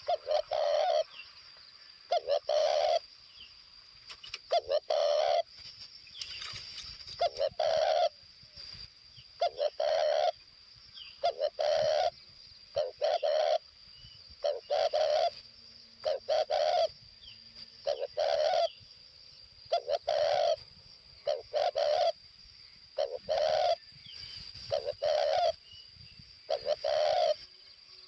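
Spotted dove cooing: a long series of short, low coos repeated every second or two, the call of a lure dove used to draw in wild doves. A steady high thin whine runs underneath.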